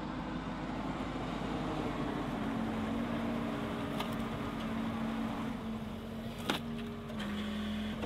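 John Deere 325G tracked skid steer's diesel engine running under load as it drives with its grapple. The engine note drops a little about two seconds in, and a few sharp knocks sound over it, the loudest about six and a half seconds in.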